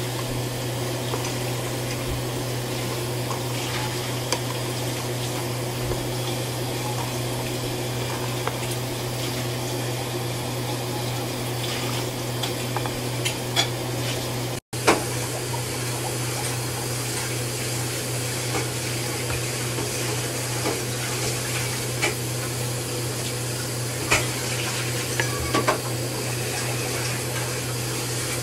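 Pot of black rice in coconut milk boiling steadily over a steady low hum, with occasional light knocks of a wooden spoon against the pot as it is stirred.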